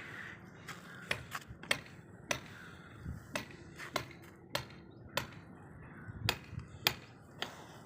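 Construction work: about a dozen sharp, irregular knocks and taps, like hand tools striking hard material, one or two a second.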